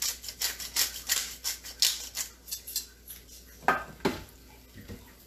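Hand-twisted pepper grinder cracking peppercorns: a run of crisp grinding crunches, about three a second, that stops about three seconds in.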